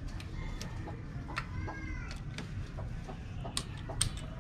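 Scattered light metallic clicks and taps as an aluminium motorcycle side stand is handled and fitted onto its bracket, with the two sharpest clicks near the end.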